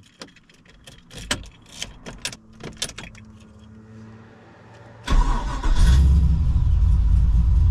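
A few clicks, then the cammed 5.7-litre LS1 V8 of an SS Commodore cranks about five seconds in and catches almost at once on its freshly flashed tune, with no throttle needed. It settles into a loud, steady idle with the choppy lope of a big camshaft.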